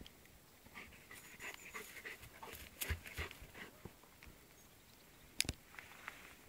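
Hovawart dog panting in quick breaths, with a few sharp clicks, the loudest about five seconds in.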